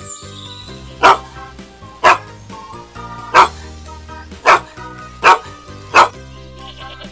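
Dog barking six times, short loud barks roughly a second apart, over background music.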